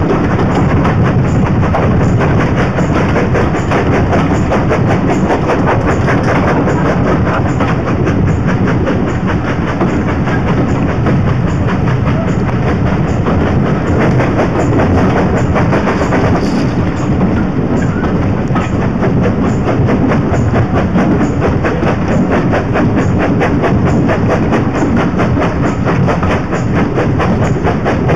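Steam locomotive working hard up front with a rhythmic beat of exhaust, mixed with carriage wheels clattering over the rail joints, heard through an open carriage window with rushing air.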